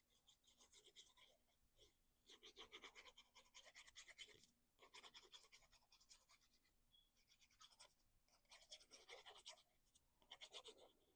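Faint, quick scratchy rubbing of cardstock being folded and creased along its score lines, in about six short bursts of rapid strokes.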